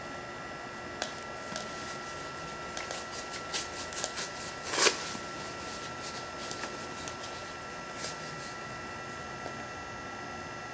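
Small sticks crackling and clicking as they are fed into a BioLite wood stove's burn chamber, with one louder scrape-and-rustle about halfway through. Under it runs the steady high whine of the stove's electric fan.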